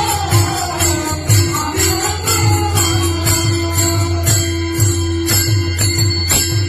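Marathi devotional music with jingling percussion keeping a steady beat, about three strokes a second, over a drum and a held drone note; a melody line fades out in the first couple of seconds.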